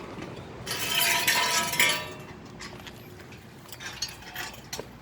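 Metal clinking and rattling: a loud clatter of about a second starting just under a second in, then scattered light metallic clicks.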